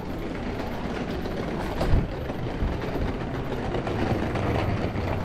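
Small wheels of suitcases and strollers rattling over cobblestones, a steady clatter with the footsteps of passers-by, and one sharper knock about two seconds in.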